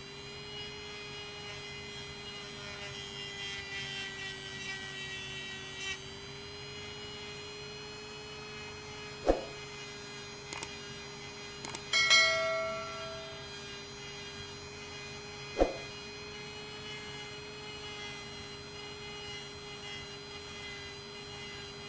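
Handheld rotary tool running with a steady motor whine while its bit sands the body filler on a small model car body. A few sharp knocks come about halfway through and again later, with a short metallic ring just after the middle.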